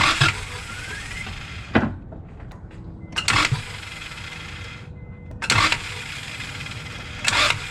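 Starter of a 1999 Acura Integra bumped in five short bursts, turning the engine over a little at a time without it firing, to bring the distributor rotor's screw into reach with the cap removed.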